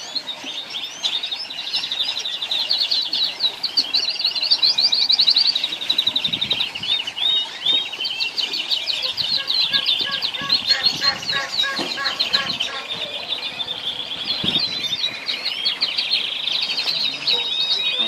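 A flock of orange canaries chirping and singing together, with many fast, overlapping trills and rapid repeated notes that never pause.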